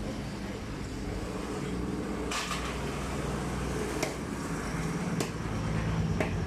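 A long heavy knife cutting a fish on a wooden chopping block, with four sharp knocks of the blade on the block over a steady low hum.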